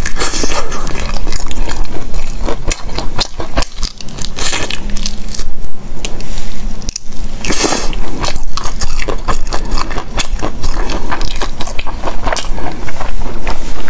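Close-miked eating: a person bites into and chews a crunchy snack, with a dense run of crackling crunches throughout.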